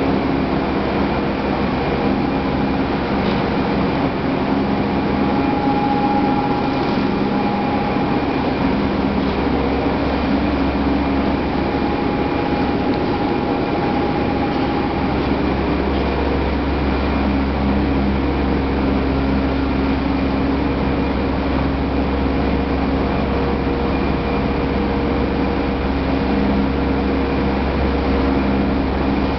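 Corn wet-milling starch-processing machinery running in a factory workshop: a continuous, steady hum of motors and pumps with several steady tones over it.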